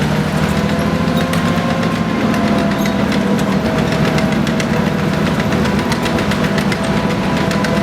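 Maybach HL 120 V12 petrol engine of a Panzer IV Ausf. G running steadily, with a constant low drone and a light, irregular ticking.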